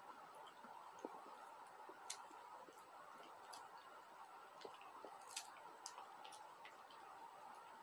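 Faint, irregular crunching clicks of a small puppy chewing pieces of puffed-grain snack (ppeongtwigi), over a faint steady hum.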